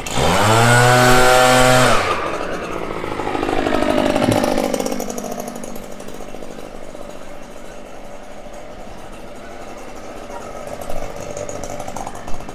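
Gas leaf blower engine throttled up sharply to full speed and held for about two seconds, then released, its pitch falling as it winds down to a low idle.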